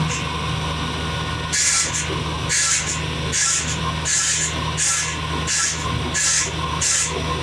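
Bench circular saw's electric motor running steadily with the blade spinning free, while a piece of deer antler is rubbed by hand in short scratchy strokes, about one a second from about a second and a half in.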